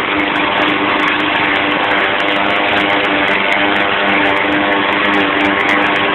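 YardMan 21-inch push mower's 159cc PowerMore single-cylinder gas engine running steadily while mowing grass.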